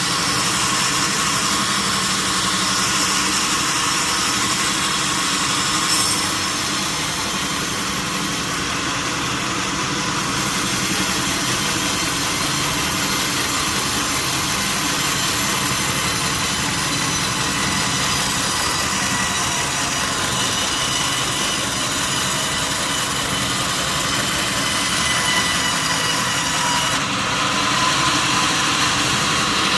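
Sawmill saw running steadily through teak, a continuous high-pitched machine noise with faint steady tones. There is one short knock about six seconds in.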